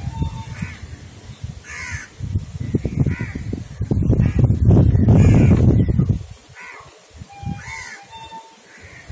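Crows cawing repeatedly, a short call about once a second. Under them, a low rubbing and knocking from a pen ruling lines on notebook paper grows loudest in the middle, then stops.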